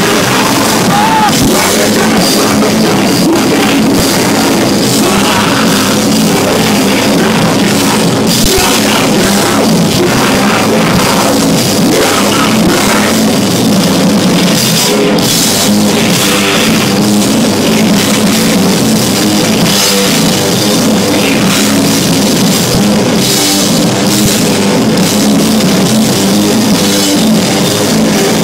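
Rock band playing live at full volume: electric guitar and bass over a drum kit, loud and steady without a break.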